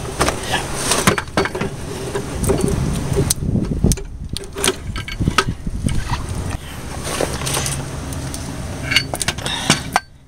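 Metal clinks, knocks and rattles of hand tools working on the alternator and drive belt in a car engine bay, over a steady low hum.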